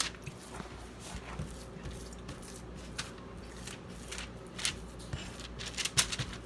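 Hands working raw breakfast sausage meat in a bowl: quiet handling noise with a few short, sharp clicks and smacks scattered through it.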